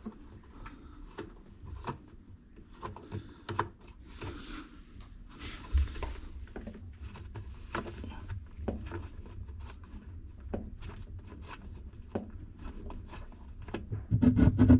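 Irregular clicks, taps and brief plastic scrapes from hands and a screwdriver working at a top-loading washing machine's plastic pulsator, loosening its screw to lift the plate out, with louder knocks near the end.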